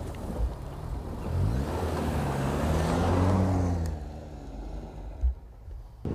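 2024 Toyota Land Cruiser's turbocharged four-cylinder hybrid powertrain driving past on a dirt track, its engine note rising and then falling as it goes by. Tyres rush over loose dirt, loudest about three seconds in, and there are two short thumps, one near the start and one about five seconds in.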